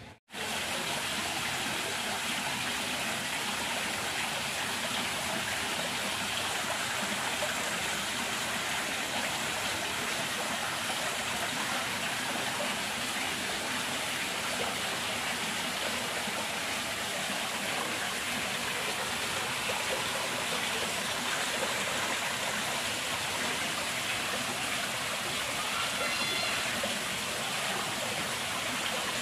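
Steady rush of running water, an even hiss that holds unchanged throughout.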